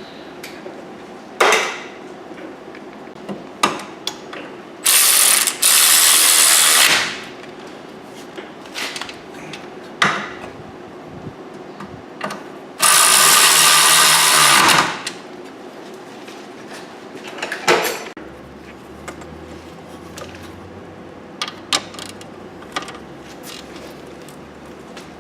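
An air-powered wrench runs in two steady bursts of about two seconds each, with short clicks and metal knocks of hand tools between them.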